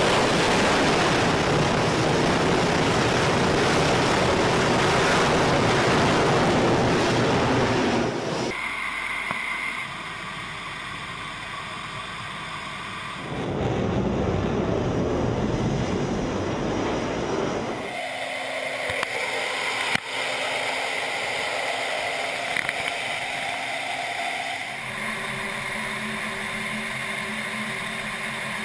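Jet engine noise from an F/A-18 at full power on an aircraft carrier deck for about eight seconds, then the sound changes abruptly several times: quieter stretches with a steady engine hum and tones, and another stretch of loud rushing noise.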